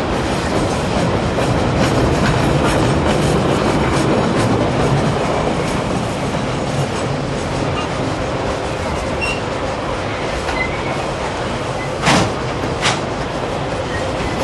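Freight wagons rolling past at close range: a steady rumble of wheels on rail with light clicking, and two sharp, loud wheel clacks about a second apart near the end.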